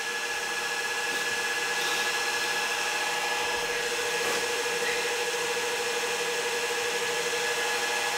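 Cooling fans of a freshly powered-up Juniper EX4550 network switch running steadily, a server-like whir with a steady high whine.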